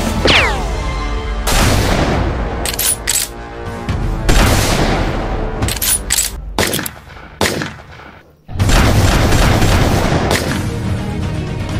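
Dubbed-in gunfire sound effects over background music: a string of sharp shots, opening with a falling whistle, with a short lull about eight seconds in.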